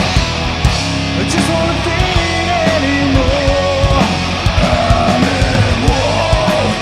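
Live heavy rock band playing an instrumental passage: distorted electric guitar lead with bent, sustained notes over bass and steady drums.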